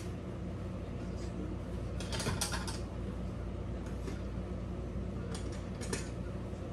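Short clattering clicks of serving-thread spools being handled on a wall rack, a cluster about two seconds in and another near the end, over a steady low hum.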